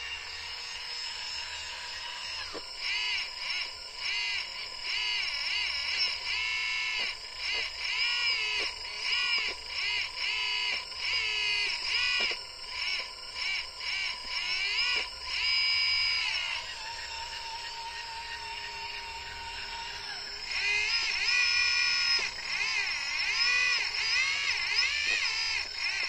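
Hydraulic pump of a 1/14-scale RC excavator whining, its pitch rising and falling and breaking off in quick runs as the boom and bucket move under load. It is steadier and quieter for a few seconds past the middle.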